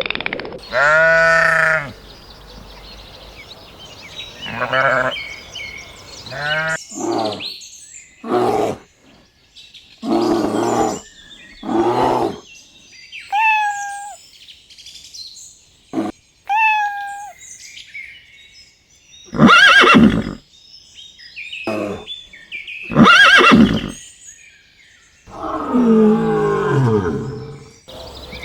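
A string of different animals' calls, one after another, each about half a second to two seconds long with short gaps between them. A longer call that falls in pitch comes near the end.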